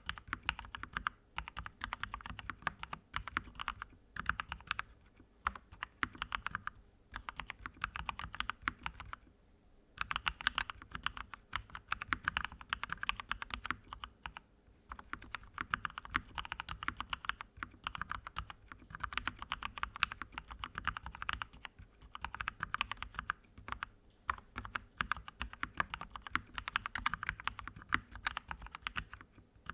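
Typing on a computer keyboard: rapid runs of key clicks, broken every few seconds by short pauses, the longest lasting about a second.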